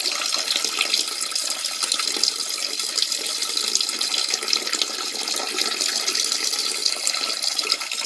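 Peeing sound effect: a steady, unbroken stream of liquid splashing, with a constant hiss.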